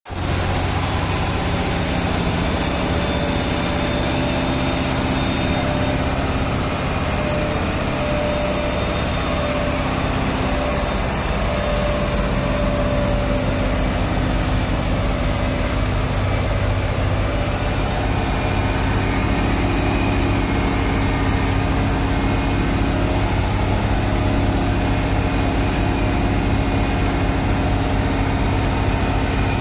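Mitsubishi Fuso 8DC9 V8 diesel engine of a transit mixer truck idling steadily.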